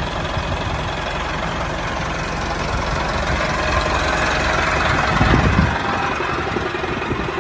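Tractor engine idling steadily with a low, knocking rumble. It swells briefly about five seconds in, then the deepest part of the rumble thins out.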